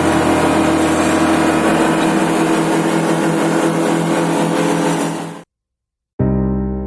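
An engine running steadily and loudly, cut off abruptly about five and a half seconds in. After a moment of silence, piano music starts near the end.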